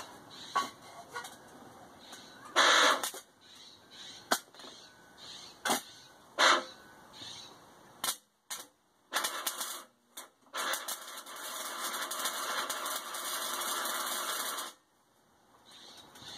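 MIG welder arc crackling: several short bursts, then a continuous weld of about four seconds that stops suddenly.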